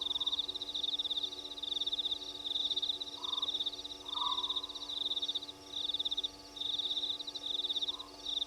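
Night chorus at a waterhole: a high, rapid pulsed trill repeats over and over in bursts of about half a second, with a few short lower calls in between and a steady low hum underneath.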